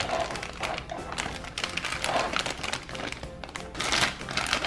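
Plastic bag and foil gel sachets being handled, with irregular crinkling and clicking, over background music.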